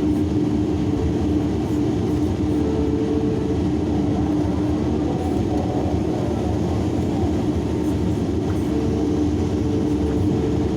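Large hydraulic excavator's diesel engine and hydraulics running steadily while it loads a truck: a constant low drone with a steady hum held over it.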